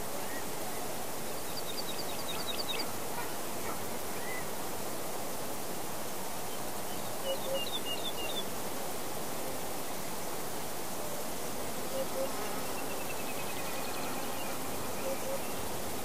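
Summer forest ambience: insects buzzing under a steady even rush of background noise. Small songbirds call over it: a quick run of high chirps about two seconds in, a short cluster of notes around the middle, and a longer dry trill in the second half.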